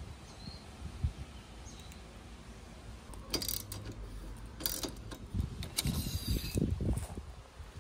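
A 3/8-inch-drive ratchet with an Allen socket clicking in short spells as it backs out the surf-rack clamp bolts, mixed with light metal handling knocks. The clicking starts about three seconds in, with a quick run of clicks near the end.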